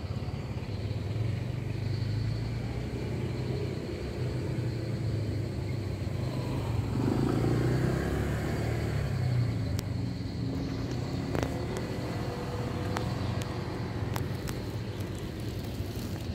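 Low, steady rumble of a motor vehicle engine running nearby, with a few sharp clicks in the second half from the cats crunching dry kibble.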